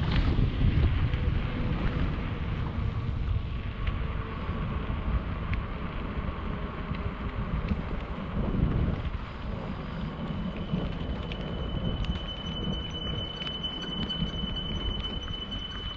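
Wind buffeting the microphone of a camera on a moving bicycle, over the rumble of its tyres on the paved path. From about ten seconds in, a steady high-pitched tone joins it.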